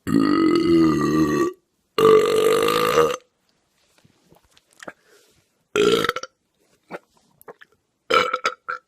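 A person burping loudly four times. There are two long, drawn-out burps of about a second and a half and a second in the first three seconds, a short one around the middle, and a broken, choppy one near the end.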